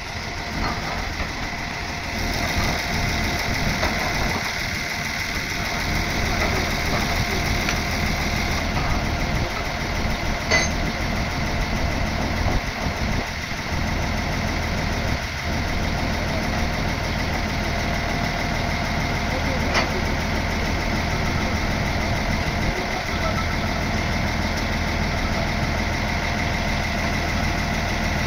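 Steady drone of an engine running without change, with a steady high whine over a low hum. Two sharp clicks, about ten and twenty seconds in.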